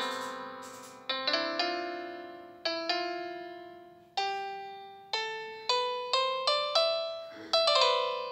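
Background music: a slow piano melody of single notes, each struck and left to ring and fade.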